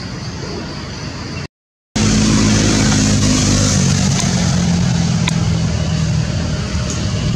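Steady engine hum with hiss. It cuts to silence for about half a second about one and a half seconds in, then comes back slightly louder.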